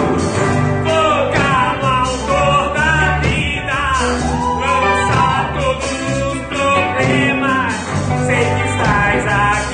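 Christian worship song played by a band with a singer carrying the melody over steady bass and chords.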